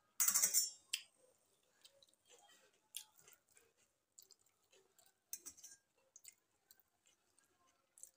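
Close-up eating sounds of watery panta bhat taken by hand: chewing and wet mouth smacks with small clicks. There is a brief loud hissing burst near the start and a softer one about five seconds in.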